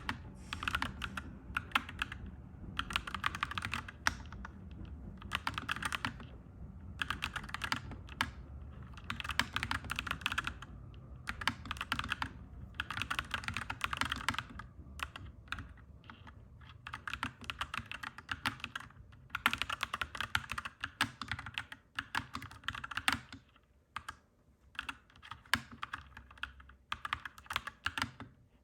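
Clacky mechanical keyboard being typed on in quick bursts of one to two seconds with short pauses between them. A low background rumble sits under the typing and fades out about two-thirds of the way through.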